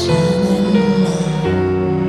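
Music soundtrack: slow, sustained notes that shift to a new chord about one and a half seconds in.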